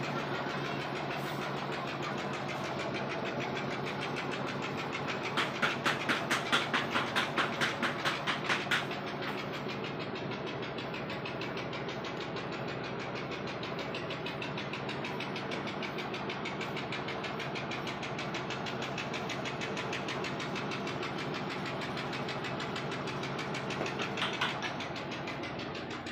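A motor-driven machine running steadily with a low drone. About five seconds in comes a run of rapid, even knocking, about four knocks a second, that lasts some three seconds; a shorter clatter follows near the end.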